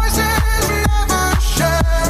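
Background music with a steady dance beat and a sung or synthesised melody over a heavy bass.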